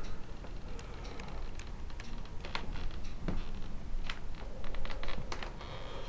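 Irregular light clicks and taps, a few every second, over a steady low hum.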